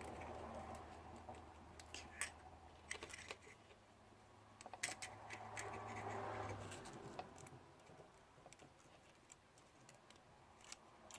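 Faint, scattered light clicks and scratches of small drone camera-gimbal parts and ribbon cable being handled with the fingers, over a low hum that stops a little over halfway through.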